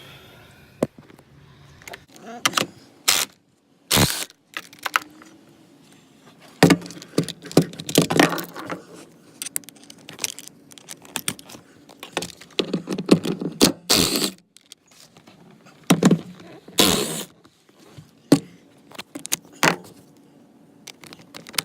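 Socket wrench and sockets clicking and clinking on metal while the back-seat mounting bolts are undone. It comes in irregular bursts of rattling clicks, with single sharp knocks between them.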